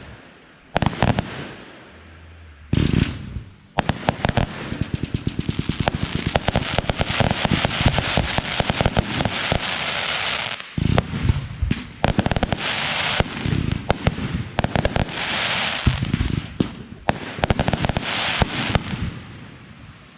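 Fireworks going off: a couple of separate bangs, then from about four seconds in a long run of rapid popping and crackling, with more single bangs and crackle in the second half.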